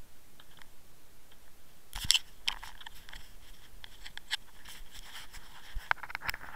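Handling noise on a small camera's own microphone: faint hiss, then from about two seconds in a run of sharp clicks, crackles and rubs as the camera is gripped and brushed against a hand and jacket fabric.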